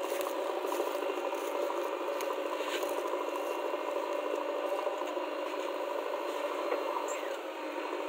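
JCB 3DX Eco backhoe loader's diesel engine running steadily under load as the backhoe digs and lifts soil, with a few faint clicks and rattles.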